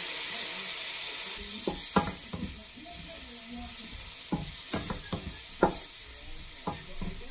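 Vegetables sizzling with a steady hiss in a frying pan, with a wooden spatula knocking and scraping against the pan as they are stirred, starting about a second and a half in.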